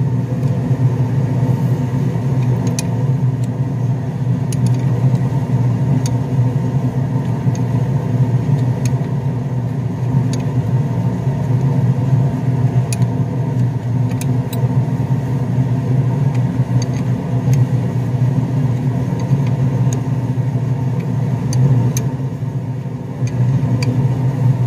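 Steady low mechanical hum of an engine or motor running, with scattered faint metallic ticks from a wrench working the brake-hose banjo bolt on a brake caliper.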